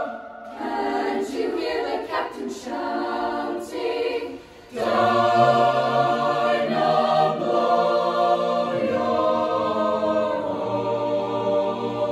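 Mixed high school choir singing a cappella in several parts. Short, clipped rhythmic syllables over the first few seconds, then full held chords from about five seconds in, with a lower voice part added.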